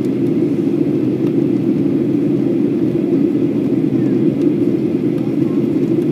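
Steady cabin noise of a jet airliner in flight: the even, low roar of the engines and the air rushing past the fuselage, heard from a window seat.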